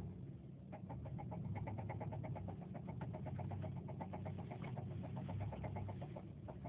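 2007 Subaru Forester XT's turbocharged 2.5-litre flat-four engine running with a rapid, even knocking over its rumble, which drops out briefly near the end. The owner suspects rod knock but is unsure because the noise comes and goes.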